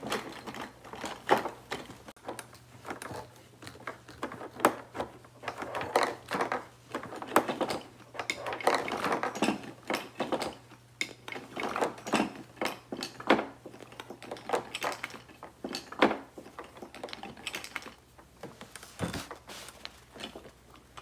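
Small hard objects being handled, clicking and clattering irregularly with many quick sharp clicks, over a faint steady low hum.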